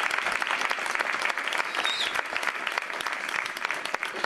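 Theatre audience applauding: dense, steady clapping that eases off slightly toward the end.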